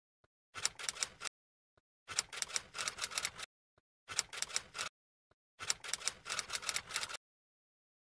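Typing sound effect: four runs of rapid key clicks, each preceded by a single faint tick, in time with on-screen text being typed out.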